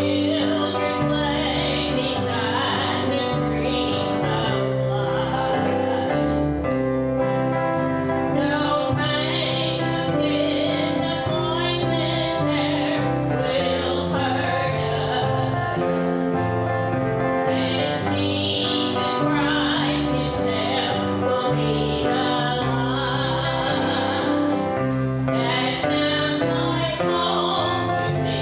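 Country gospel song performed with voices singing over acoustic guitar accompaniment, sung phrases rising and falling over steady strummed chords.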